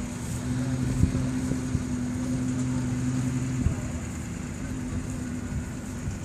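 Engine of an old Series Land Rover running at a steady low note as it drives slowly past, with two sharp knocks, about one and three and a half seconds in.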